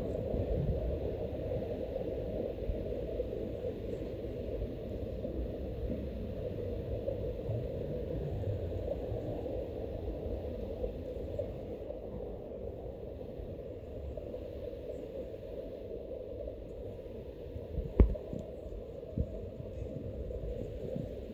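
Steady low outdoor background rumble, such as distant traffic or wind, with one sharp click about 18 seconds in.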